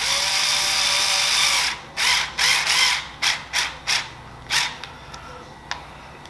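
Small cordless electric screwdriver running for about a second and a half, then in a string of short bursts as it drives a small screw tight on a speargun muzzle eye.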